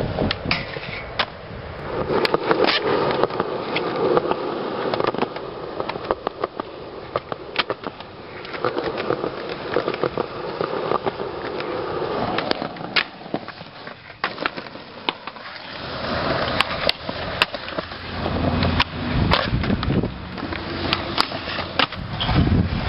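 Skateboard wheels rolling on concrete, broken again and again by the sharp clacks of tail pops and of the board slapping down on landings, with deeper rumbling rolls near the end.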